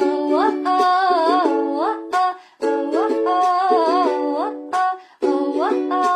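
Music: a voice singing a gliding, wordless melody over strummed chords on a plucked string instrument, phrase by phrase with brief breaks between phrases.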